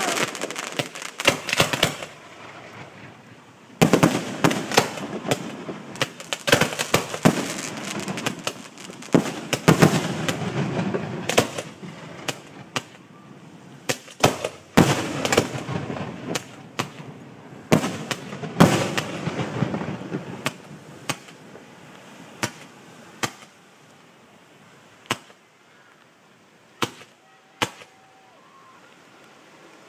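Fireworks display: a rapid barrage of sharp cracks and booms that thins out over the last third to a few scattered single bangs.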